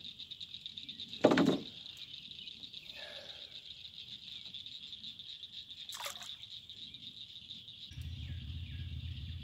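A single short splash in the lake water about a second in, the loudest sound here, over a steady high-pitched background drone; a low rumble comes in near the end.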